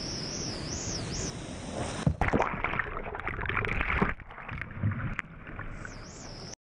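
Whitewater rapids rushing around a kayak, with a louder stretch of splashing and knocking water for about two seconds in the middle. A high wavering tone rises and falls over the rush at the start and again near the end. The sound cuts off suddenly just before the end.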